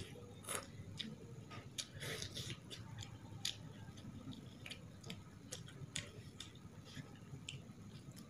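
Faint wet mouth clicks, smacks and sucking of someone eating meat off a bone held in the fingers, in a loose irregular series of short ticks.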